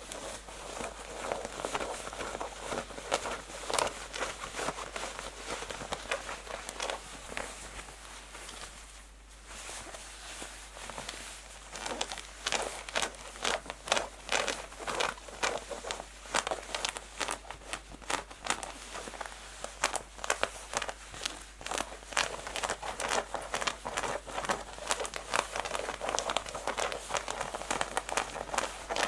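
Fingernails scratching fast and hard on textured denim jeans: a dense run of rapid rasping strokes. They ease off for about two seconds near a third of the way in, then start up again.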